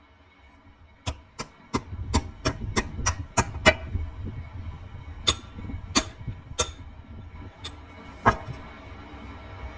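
Hammer striking metal: a quick run of about nine ringing blows, roughly three a second, then a few slower, spaced blows, over a low rumble.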